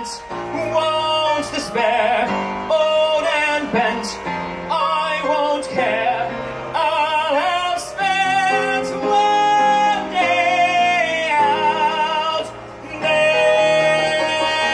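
A man singing a show tune through a microphone, holding long notes with strong vibrato, accompanied by piano.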